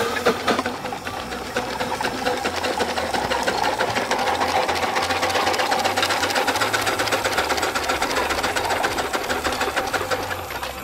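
Grand-scale coal-fired steam traction engine running, its engine beating in a rapid, even mechanical rhythm. The beat grows louder over the first couple of seconds, then holds steady.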